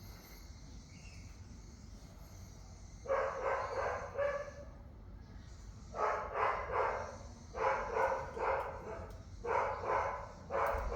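A dog barking in repeated bouts of several quick barks, starting about three seconds in.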